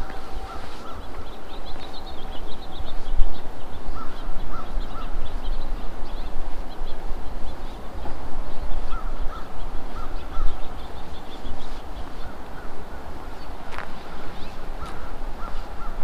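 Crows cawing in short runs of three or four calls, several times over, above a steady low rumble.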